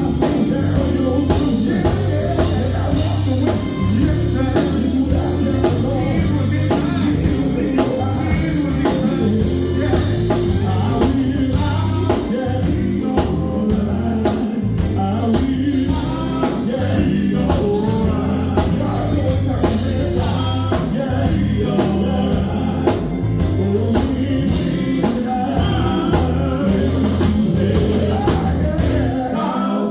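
Vocal group singing with a band of drums and electric guitar, loud and steady.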